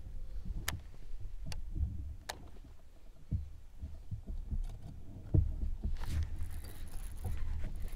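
Low rumble and dull thumps of gear being handled on a boat deck, with three sharp clicks under a second apart in the first half.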